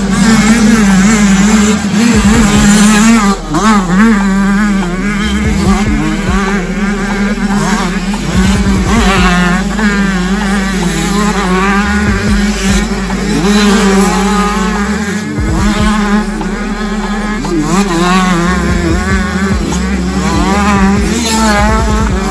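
Several 65cc two-stroke motocross bikes revving hard on the throttle and riding past. Their engine notes rise and fall over and over as they accelerate, shift and back off.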